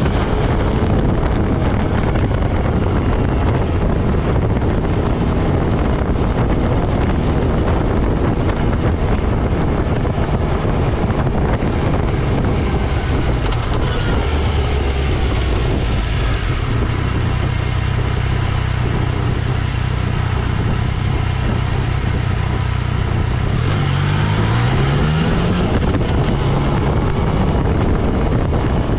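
Motorcycle engine running while the bike is ridden, with wind noise on the microphone. The engine note holds steady for a stretch, then climbs a little after three-quarters of the way through as the bike accelerates.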